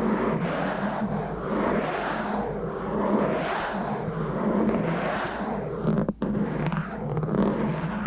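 Rough scratching and rubbing directly on a bare microphone with no cover: a continuous rasping scrape that swells and fades in slow strokes, roughly one to two a second, with a brief cut-out about six seconds in.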